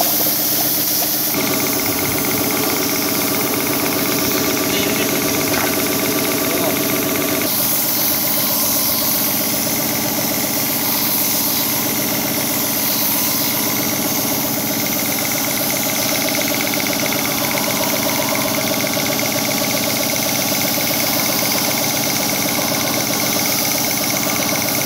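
Hi-Tech air compressor running steadily, with the hiss of compressed air and paint from a gravity-feed spray gun over it; the hiss grows brighter about seven and a half seconds in.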